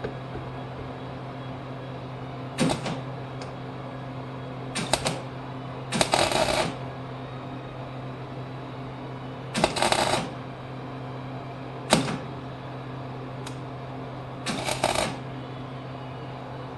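Wire-feed welder laying a series of short tack welds: about six brief bursts of crackling arc, each under a second, with pauses between, over a steady low hum.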